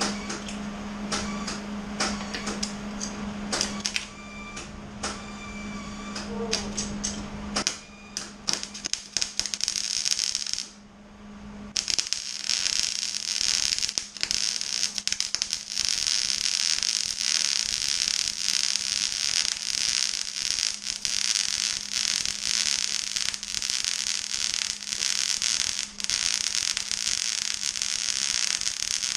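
Arc welding on a steel mower deck. A low steady hum with scattered clicks at first; about eight seconds in the arc starts crackling and sputtering in short starts, stops briefly near eleven seconds, then runs as a continuous crackle.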